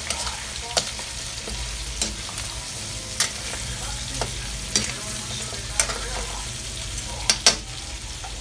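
Pork frying in a wok with a steady sizzle, stirred with a metal ladle that clinks and scrapes against the pan about once a second.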